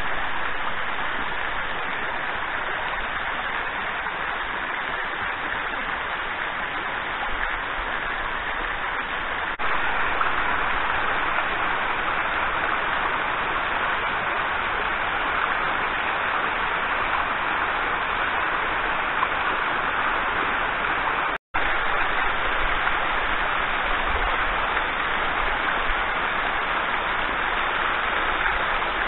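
Water of a travertine waterfall falling in thin streams and drips over a mossy rock face: a steady splashing hiss. It gets a little louder about ten seconds in and cuts out for an instant about two-thirds of the way through.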